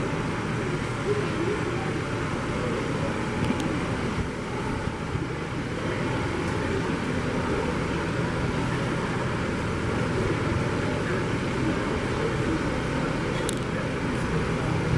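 A John Deere utility tractor's diesel engine running steadily.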